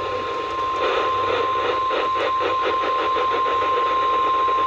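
NOAA Weather Radio 1050 Hz warning alarm tone: one steady, unbroken tone over a hiss of radio static, the alert signal that comes just before an emergency weather message is read out.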